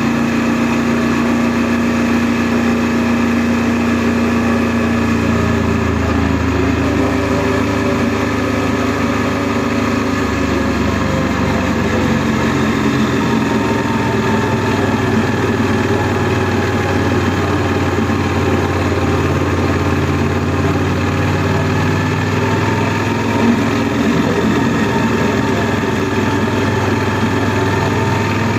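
Honda NC700S's 670 cc parallel-twin engine running steadily under way, its note shifting a little with the revs now and then.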